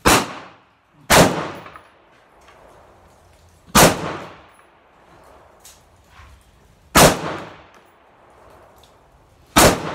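AR-15 rifle firing five single shots at an uneven slow pace, one to three seconds apart, each followed by a short echoing tail.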